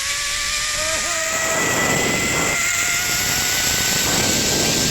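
Zipline trolley pulleys running along the steel cable, a whine slowly rising in pitch as the ride picks up speed, with wind rushing over the microphone.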